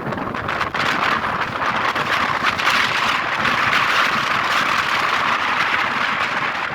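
Wind rushing over the microphone in an open-top car at driving speed, with road noise underneath. The rush swells a little in the middle and eases toward the end.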